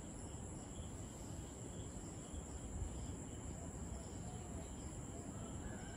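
Insects chirring in a steady high drone, with a softer pulsing chirp repeating about two or three times a second, over a faint low rumble.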